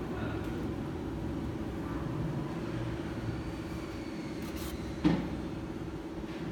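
Steady low background hum, with one short knock about five seconds in.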